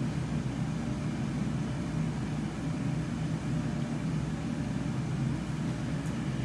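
Steady low mechanical hum and rush of machinery running, even throughout with no clear rhythm.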